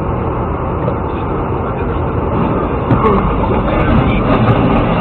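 Steady road and engine noise inside a moving vehicle, picked up by a dashcam. From about three seconds in the noise gets a little louder, with a knock and scattered sharp clicks as a truck crashes on the road ahead.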